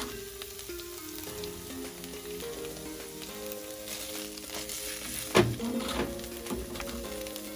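Green curry paste sizzling as it fries in oil in a non-stick frying pan, stirred and scraped with a wooden spatula, at the stage where the paste is cooked in the oil until fragrant. A single sharp knock comes about five seconds in.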